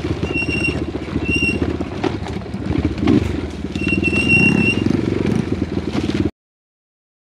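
Motorcycle engine running steadily, with three short high squeaks over it. It cuts off abruptly about six seconds in.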